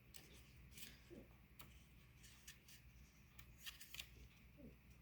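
Near silence with a few faint clicks and rustles of paper: an oracle deck's guidebook being leafed through to find a page.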